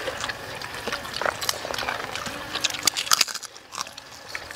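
People eating close to the microphone: wet chewing and lip-smacking clicks, thickest in the middle, with a short hummed "mm" about halfway through.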